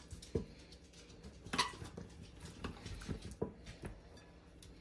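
Metal tongs tossing sauced chicken pieces in a ceramic bowl: a few soft, scattered taps and wet shuffles.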